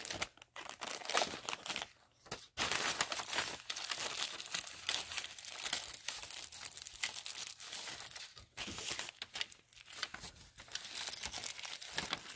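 Clear plastic sleeve and tissue paper crinkling and rustling as they are handled to free a pair of glasses from the wrapping, with a few short pauses.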